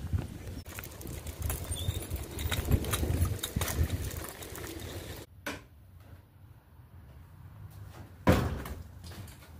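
A loaded folding wagon rolling over asphalt, its wheels rumbling and the scrap wood knocking about in it. After a cut, an old wooden door is pushed open with a loud knock and scrape about eight seconds in.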